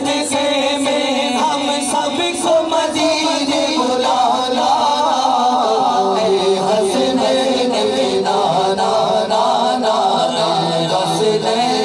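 Men singing a naat, an Urdu devotional song: a lead male voice with backing male singers, all on microphones, in long wavering melodic lines.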